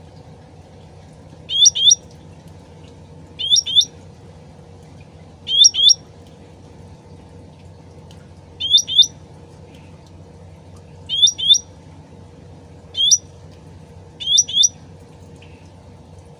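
Cucak ranting (cucak rante) calling: short, sharp double-note calls, each pair of notes rising quickly, repeated about every two seconds, seven times. A steady low background noise runs underneath.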